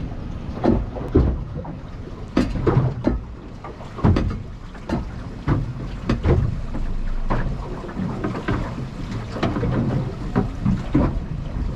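Choppy wind waves slapping against the hull of a small aluminium boat, irregular knocks and splashes over a low rumble, with wind buffeting the microphone.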